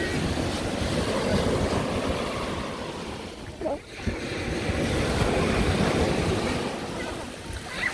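Ocean surf breaking and washing up a sandy beach: a steady rush that swells, dips about four seconds in, swells again and eases near the end. Wind buffets the microphone.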